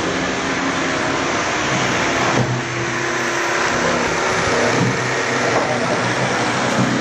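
Electric jigsaw running steadily as it cuts a curved strip of gypsum board.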